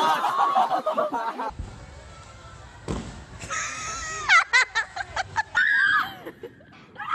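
A group of young people shouting and laughing, cut off about a second and a half in. A soft thud comes near the three-second mark, then high-pitched squeals and laughter.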